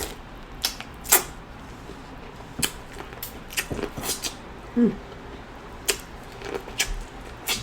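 Mouth sounds of someone eating a saucy seafood boil: scattered wet lip smacks and chewing clicks at irregular intervals, with a brief voiced hum a little before the five-second mark.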